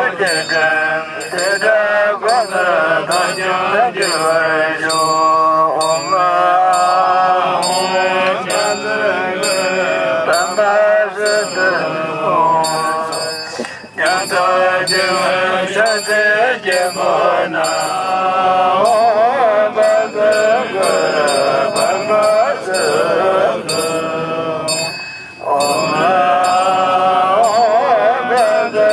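Buddhist mantra chanting by a man's voice, a slow melodic recitation with a wavering pitch, over a light even percussion beat. The chant breaks off briefly twice, about halfway through and near the end.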